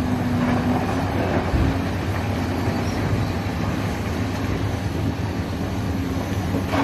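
Caterpillar 365CL crawler excavator's diesel engine running steadily under load as the machine digs a bucket of rock and swings it up, with a low hum.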